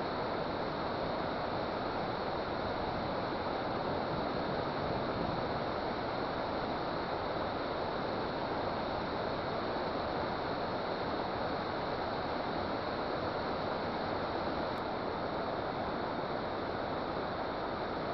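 Steady rushing of water pouring from a dam, an even, unbroken roar.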